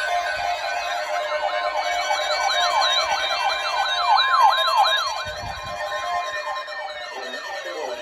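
Several electronic sirens sounding at once, their pitch sweeping rapidly up and down about twice a second over a steady tone. The sirens get quieter about five seconds in.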